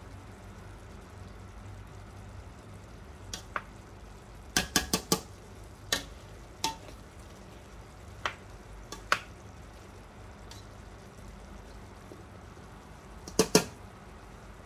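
Metal slotted spoon clinking against a stainless steel pot while stirring chopped apples for pie filling: scattered sharp clinks, a quick run of four about four and a half seconds in and a close pair near the end.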